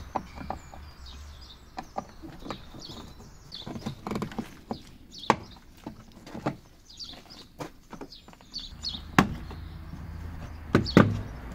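Plastic trim panel of a Mitsubishi L200's rear door being worked loose and pulled off: irregular clicks and knocks of plastic, with a few sharper knocks in the second half.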